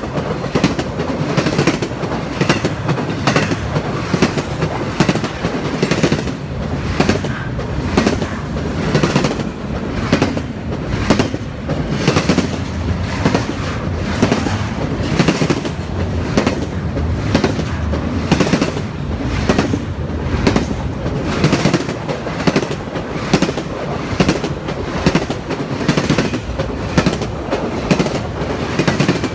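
Intermodal freight train rolling past: a steady low rumble of its cars with evenly repeating clicks as the wheels pass over the rails.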